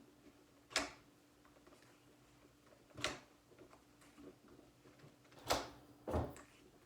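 Four sharp plastic clicks spaced a couple of seconds apart, from a Nerf Elite 2.0 foam-dart blaster being handled as new darts are loaded into it.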